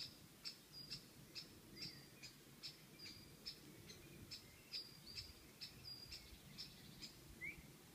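A small bird calling with short, high chirps repeated evenly about two or three times a second, faint, with a brief rising note near the end.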